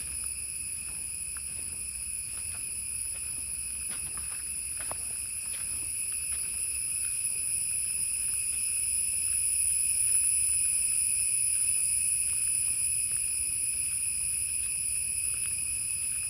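Insects trilling in a steady high-pitched chorus that never breaks, swelling a little about two-thirds of the way through. Faint scattered ticks sound underneath.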